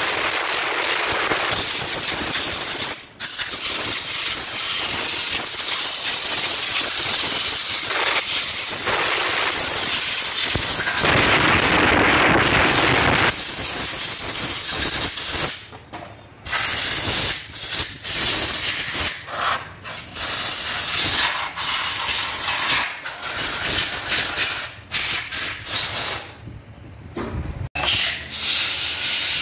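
Compressed-air blow gun hissing as it blasts dust out of a scooter's CVT clutch shoe assembly and pulley parts. Long blasts through the first half, broken once about three seconds in, give way to a run of short bursts in the second half.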